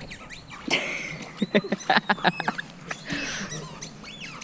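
Small birds chirping with short high calls that rise and fall, over a quick run of loud crunching steps in dry leaves about a second and a half in, as a dog runs for a tennis ball.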